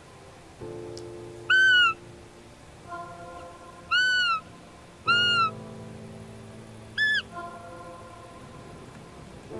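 Four short, high, whistling fiep calls of the kind used to imitate a roe doe in the rut, each rising slightly and then falling. Background music with long held tones runs underneath.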